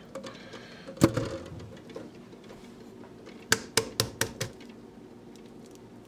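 Hard-boiled egg tapped against a countertop edge to crack its shell for peeling: one knock about a second in, then a quick run of about five sharp taps near the middle.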